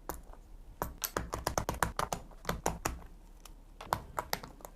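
Keys on a mechanical keyboard being pressed in quick succession: a rapid, irregular run of sharp clicks.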